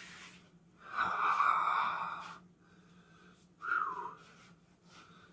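A man blowing out two hard breaths through pursed lips, winded from push-ups. The first is long and comes about a second in; the second is shorter, with a faint whistle that falls in pitch. A steady low hum runs underneath.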